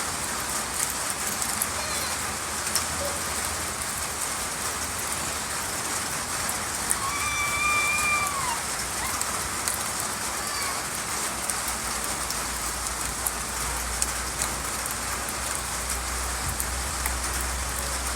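Steady rain falling, with the fine ticking of drops hitting a surface. A short high call sounds briefly about halfway through, and a low steady hum comes in during the second half.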